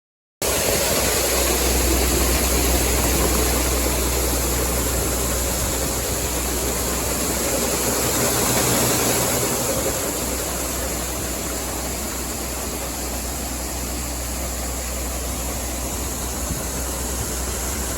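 Diesel engine of large farm harvest machinery running steadily under load, a constant low engine hum with a broad rushing noise over it, cutting in abruptly just after the start.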